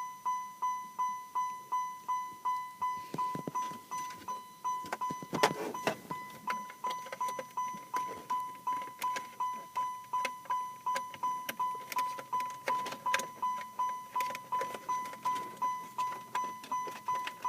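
Car's electronic warning chime dinging steadily, about two and a half chimes a second, with scattered light clicks and knocks from hands working on the interior.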